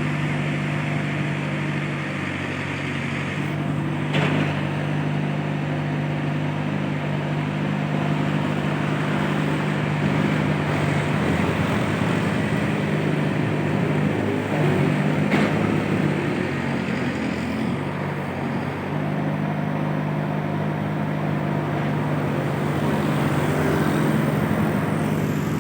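Excavator's diesel engine running steadily, its note shifting now and then as it works, with two sharp knocks, about four and about fifteen seconds in.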